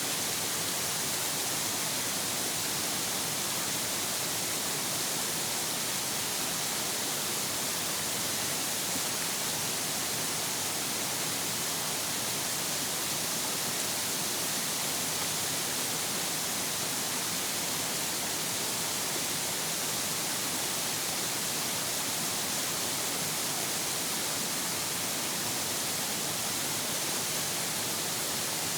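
Ariake Falls waterfall rushing steadily: an even, unbroken hiss of falling water that holds the same level throughout.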